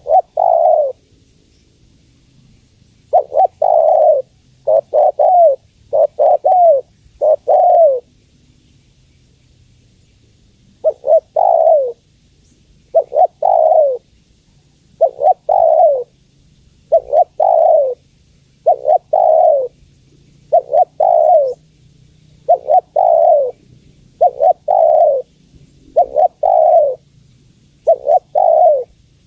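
Spotted dove cooing: a series of falling coo notes, offered as a female's call to males. A run of five notes comes after a pause of a couple of seconds, then a gap of about three seconds, then the coos go on steadily at about one a second.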